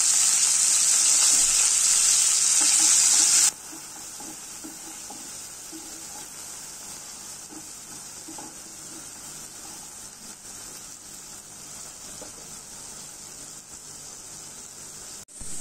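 Chopped onions sizzling loudly as they hit hot oil in a non-stick kadai. The sizzle cuts off suddenly about three seconds in. A much quieter frying sizzle follows, with a wooden spatula stirring the onions.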